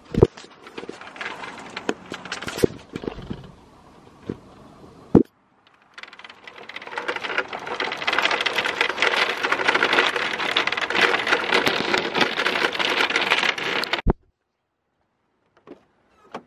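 Plastic shopping cart pushed across parking-lot asphalt: a few knocks and clicks at first, then a long stretch of steady, rapid rattling from its wheels rolling over the rough surface that stops abruptly.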